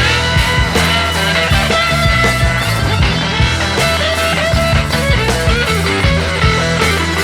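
Background rock music with electric guitar, a steady beat and bass.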